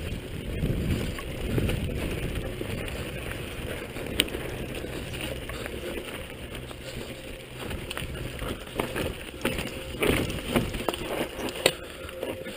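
Downhill mountain bike rolling fast over a dirt trail: a steady rumble of tyres and wind buffeting the microphone, with the bike rattling. Sharp knocks from rocks and bumps come about four seconds in and again in a cluster near the end.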